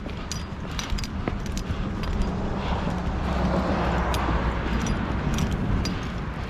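Wind buffeting the microphone in a steady low rumble, with scattered sharp clicks throughout.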